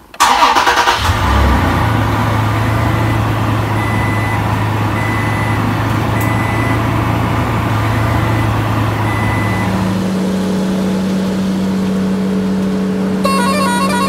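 A truck engine sound effect starts up and runs steadily, its hum shifting to a higher pitch about ten seconds in. Near the end, a quick tune of stepped notes begins.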